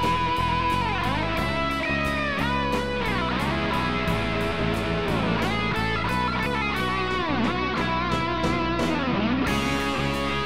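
Instrumental background music led by guitar, with sliding, bending notes over a steady beat.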